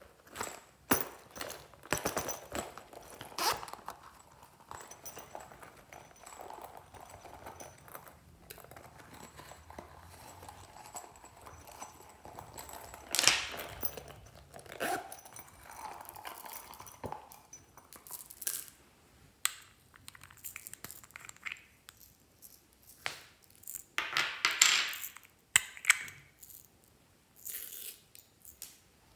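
Hands handling a soft popsicle-shaped zippered pouch: scattered rustles, crackles and clicks, with a few sharp scraping pulls of its zipper.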